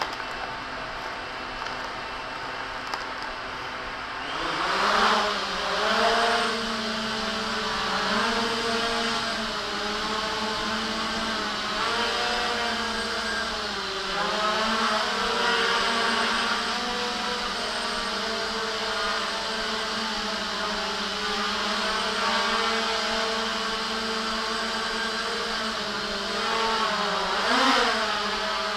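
JJRC X1 brushless quadcopter motors and propellers whirring. They speed up about four seconds in, then hover with a pitch that wavers up and down as the throttle shifts, with louder surges shortly after the speed-up and again near the end.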